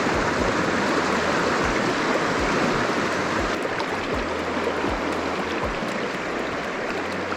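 River water rushing over rocks, a steady loud rush that cuts in suddenly.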